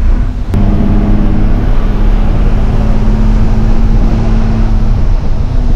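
Bus engine running while the bus is under way, heard from inside the cabin: a steady low drone with a held hum. A single sharp click comes about half a second in.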